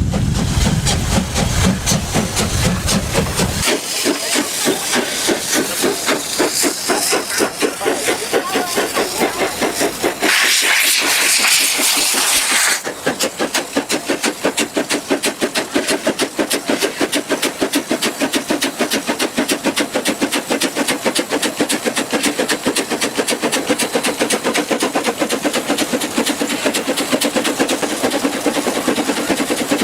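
Steam-driven machine running with a fast, even chuffing rhythm. A loud hiss of escaping steam comes in about ten seconds in and lasts a couple of seconds.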